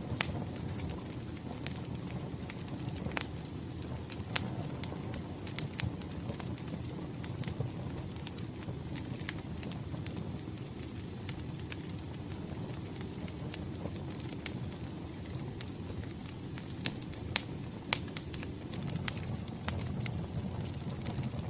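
Wood fire crackling, with irregular sharp pops scattered over a steady low rumble. A few louder pops come about three-quarters of the way through.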